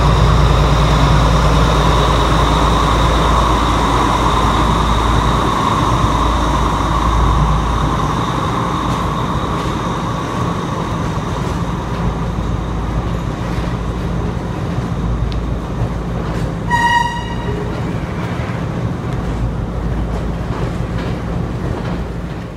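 Train at a station platform: a steady, loud rumble with a high ringing whine that fades away over the first several seconds, and a short high-pitched tone about 17 seconds in.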